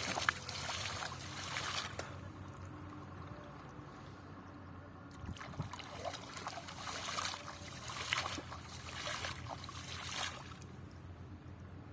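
Water splashing and trickling in irregular bursts, over a faint steady low hum.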